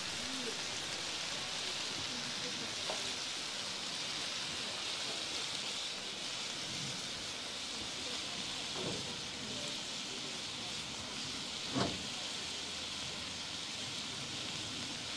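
Fajita peppers, onions and meat sizzling steadily on a flat-top griddle, with a faint knock about twelve seconds in.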